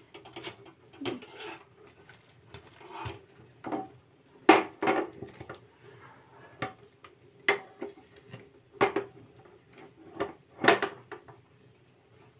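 Scattered knocks and clinks of metal kitchen utensils against cookware on a gas stove, the loudest about four and a half and ten and a half seconds in, over a faint steady hum.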